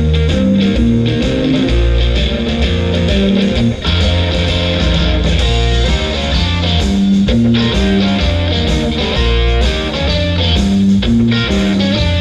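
Music with electric guitar over a heavy, prominent bass line.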